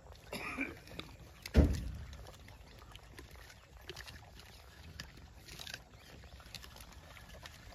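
A few gray langurs eating apples on grass, with faint rustling and small clicks. One loud dull thump comes about a second and a half in.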